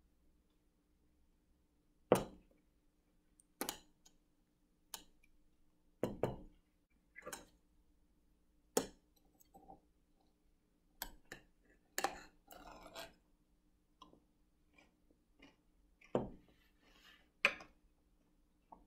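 Metal drinking straws clinking and tapping against a glass tumbler while stirring a thick smoothie: about ten sharp clinks, irregularly spaced, with a brief scraping rustle about two-thirds of the way through.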